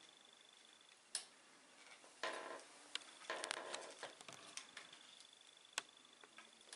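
Faint scattered clicks and taps of a steel scope mount being handled, its thumbscrews tightened to lock it into the rifle's dovetail rail.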